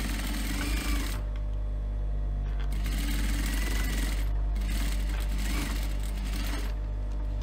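Industrial flatbed sewing machine stitching a folded strip of faux leather in three short runs. It stops briefly about a second in and again around four and a half seconds, over the steady hum of its motor.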